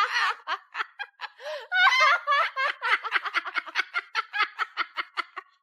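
High-pitched laughing: a run of quick ha-ha bursts, about four or five a second, tapering off near the end.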